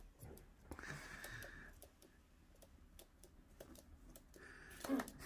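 Faint, scattered light clicks of a kitten's and a pigeon's claws tapping on a laminate floor, with a soft rustling noise about a second in and a louder short sound near the end.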